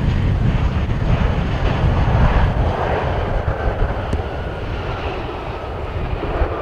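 A Ryanair Boeing 737 MAX 8's CFM LEAP-1B jet engines running on the runway: a loud, deep rumble of jet noise that eases slowly as the airliner rolls past and away.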